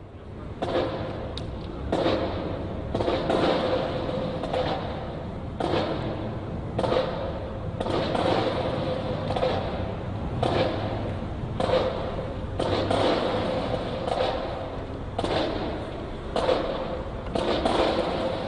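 A regular thud about once a second over a steady background of outdoor noise, with a faint steady tone underneath.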